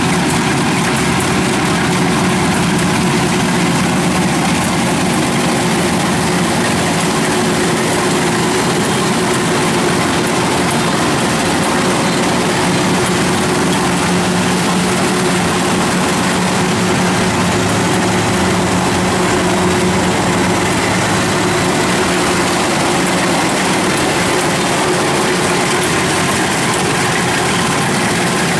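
A small engine running steadily at a constant pitch.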